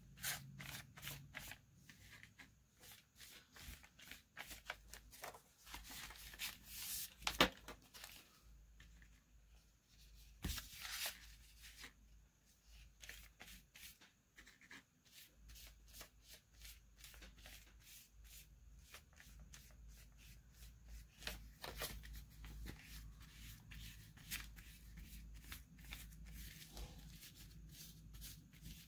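Quiet paper handling: sheets rustling and crinkling on a kraft-paper covered table as they are smoothed down by hand and brushed with glue, with many small clicks and rustles and a few louder crinkles around 7 and 11 seconds in.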